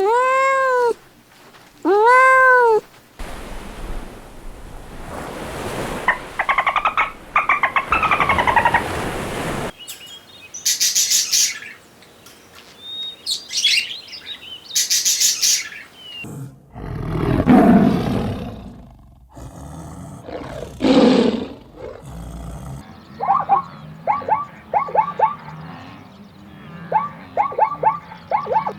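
A string of different animal calls cut one after another: three arching meow-like calls at the start, high chirping in the middle, two loud low drawn-out calls after that, and rows of short quick calls near the end.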